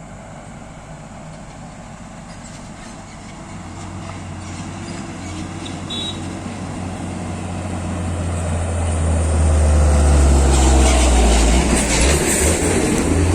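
A heavy diesel vehicle's engine with a steady deep hum, growing louder as the vehicle approaches. It becomes loud with rattling and clattering as it comes close in the last few seconds.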